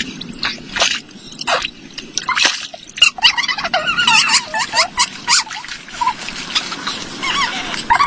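Water dripping and splashing in sharp single drops, then from about three seconds in a busy twittering of many quick bird-like chirps.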